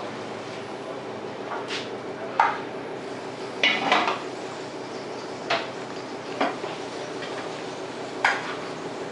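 Metal pans and cooking utensils clanking on a commercial gas range: about six separate knocks and scrapes, the loudest two about two and four seconds in, over a steady kitchen hum.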